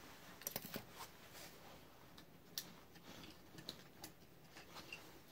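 Faint, scattered clicks and light knocks of small die-cast toy cars being handled and picked out of their case, a few irregular ticks over a quiet room.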